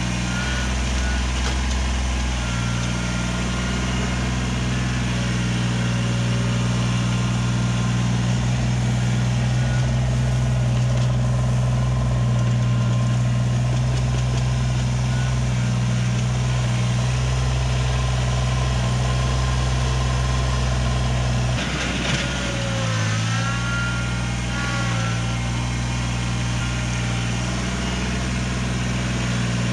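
Diesel engine of a compact loader or tractor running steadily at work. About two-thirds of the way through, the engine note briefly dips and shifts, and faint high squeaky tones come in.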